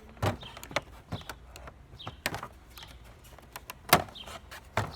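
Irregular clicks and knocks of a screwdriver and loose parts being handled while screws are taken out of a salvaged appliance, with the sharpest knock about four seconds in.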